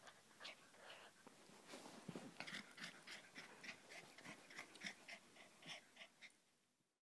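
Corgi puppy chewing and mouthing a rope toy, with faint, quick, irregular mouth and breath sounds that stop near the end.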